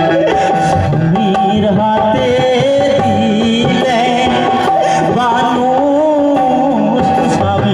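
Live Bengali jari folk music: a wavering melody line over a steady tabla-like hand-drum rhythm.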